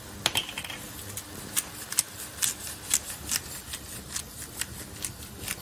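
Hand-twisted pepper mill grinding pepper, an irregular string of crunching clicks, about two or three a second.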